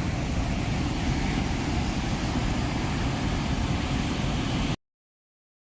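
Steady rushing noise with a strong low rumble, which cuts off abruptly to silence about five seconds in.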